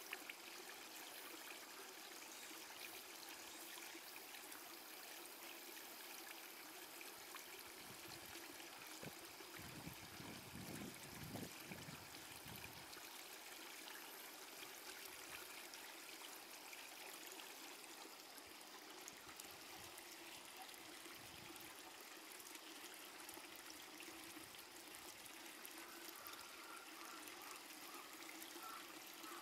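Near silence: a faint, steady outdoor hiss, with a brief low rumble about ten seconds in.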